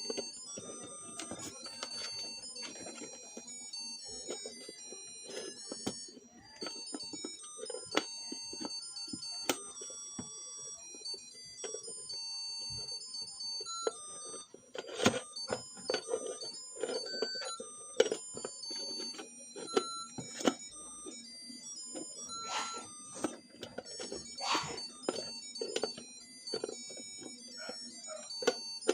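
Music: a tinny electronic melody of short, high beeping notes, with sharp clicks scattered through it.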